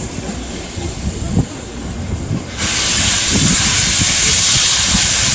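Train at a platform with a low rumble, then about halfway through a loud, steady hiss starts suddenly and holds.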